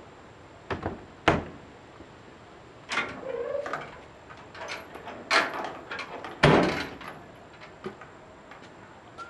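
Aluminum-skinned camper doors being handled and shut: a string of knocks and latch clicks, a short squeak a little after three seconds, and the loudest thump about six and a half seconds in.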